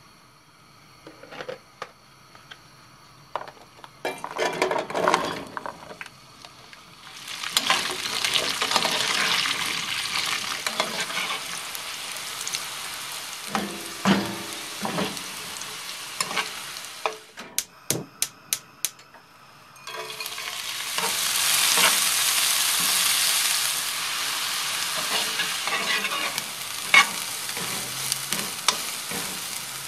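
Chopped celery, then finely chopped herbs, sizzling as they fry in oil in a pan on a gas hob. The food is stirred, with knocks of the pan and spoon. Near the middle a quick run of about five sharp clicks comes in a short pause between the two bouts of frying.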